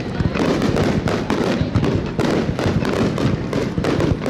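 A dense fireworks barrage: aerial shells bursting in rapid, almost unbroken succession, many bangs each second.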